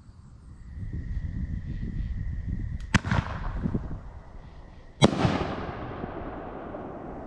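Single-shot aerial firework going off: two sharp bangs about two seconds apart, the launch and then the shell's burst. The second bang is louder, with a long echo fading away.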